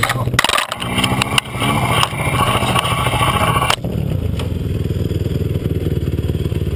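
Yamaha Raptor 700 quad's single-cylinder engine running through a rollover in sand, with clattering knocks and scraping as the machine and rider tumble. A little under four seconds in, the knocks stop and the engine runs on steadily while the quad lies on its side.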